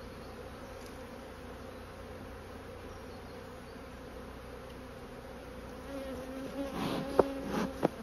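Agitated honeybees buzzing in numbers around an open hive, a steady hum of wings from a colony defending its hive. Near the end the buzzing gets louder as bees come close, with a run of sharp taps.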